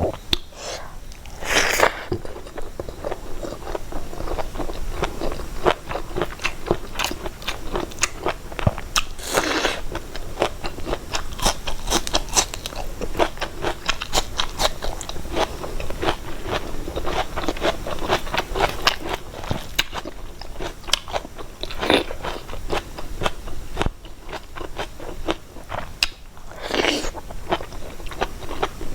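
Close-miked chewing and biting of food, mukbang style: a dense run of crisp crunches and mouth clicks, with a few longer, louder mouthfuls a couple of seconds in, about nine seconds in and near the end.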